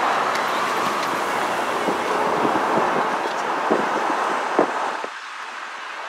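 Steady rushing noise of vehicles in motion, with several sharp knocks from about two and a half seconds in. The rushing falls off about five seconds in.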